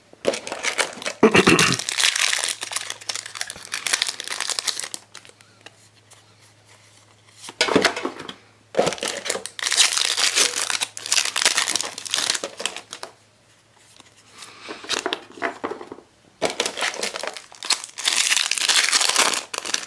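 Foil wrappers of Yu-Gi-Oh! trading-card booster packs being torn open and crinkled by hand. The rustling comes in several spells, with short quiet gaps between them.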